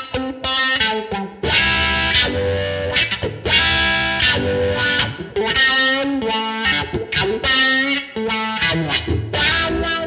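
Electric guitar played through an Electro-Harmonix Crying Tone wah pedal. It starts with a few short picked notes, then moves to longer held notes and chords from about a second and a half in.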